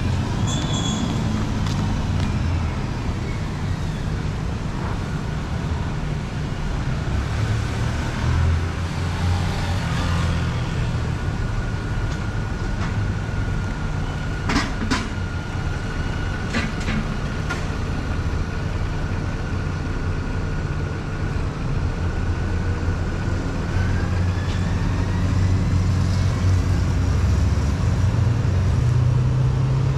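Road traffic with buses and cars running and passing, a steady low engine rumble throughout. A few sharp clicks a little past the middle.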